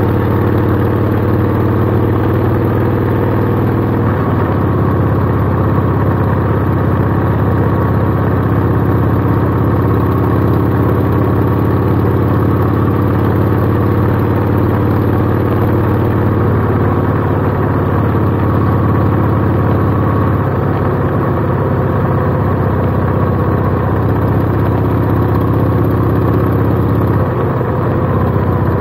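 Cruiser motorcycle engine running steadily under way, with road and wind noise. The engine note shifts briefly about four seconds in and again near the end.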